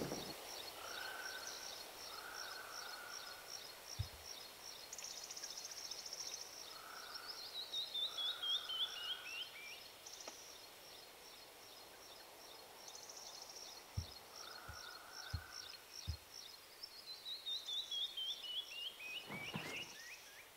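Birds singing: a steady run of quick high chirps, twice breaking into a trill that slides down in pitch, with lower buzzy calls in short bursts between. A few soft low thumps come in, one about four seconds in and four close together later on.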